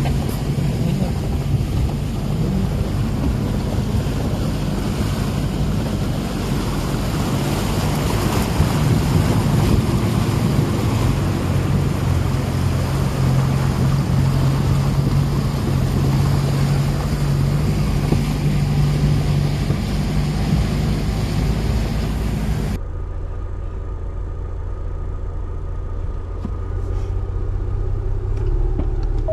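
4WD engine pulling steadily at low speed while wading through a river crossing, with water washing and splashing along the vehicle's sides. About 23 seconds in the water hiss drops away suddenly, leaving the engine's low rumble.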